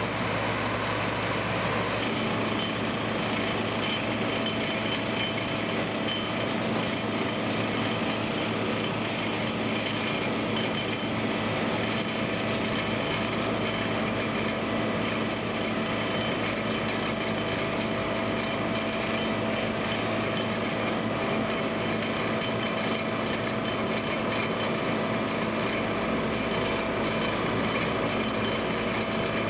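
Tracked pipe-laying plow running steadily under load: a constant engine drone with steady tones over mechanical noise.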